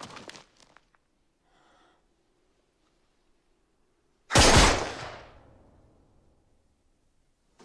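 A single rifle shot on a war film's soundtrack: one sudden, loud crack about four seconds in, its echo dying away over a second or so, after a few quiet seconds.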